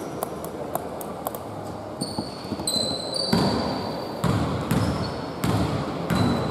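A basketball bounced on a hardwood court four times, about once a second, as a player dribbles before a free throw. Just before the bouncing, a couple of high shrill tones sound for about a second.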